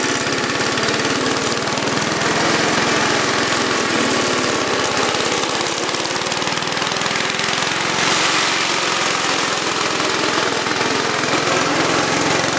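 Suffolk engine of an old ATCO self-propelled cylinder lawn mower running steadily as the mower cuts grass. This engine bogs down and cuts out when cutting, a fault the owner puts down mostly to the carburettor.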